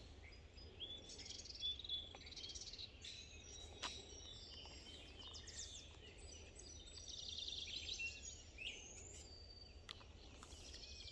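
Several birds chirping and trilling faintly, with a low steady rumble underneath and a single sharp click about four seconds in.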